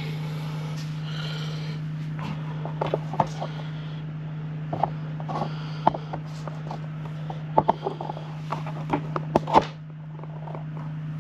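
A steady low hum with a scattered series of sharp clicks and knocks, the loudest near the end; the background noise drops just before the end.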